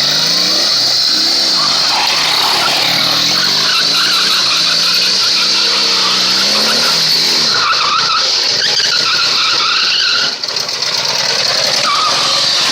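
A vehicle engine revving up and down repeatedly, under a steady loud hiss, with a brief drop in level about ten seconds in.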